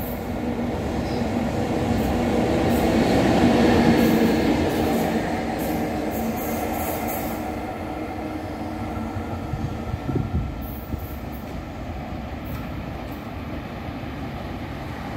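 EF64 electric locomotive running through the station: its hum and wheel noise swell to a peak about four seconds in, then fade as it moves away. There is a brief clunk about ten seconds in.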